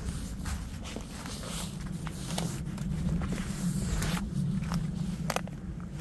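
Footsteps crunching and rustling through dry fallen leaves at a steady walking pace, over a steady low rumble.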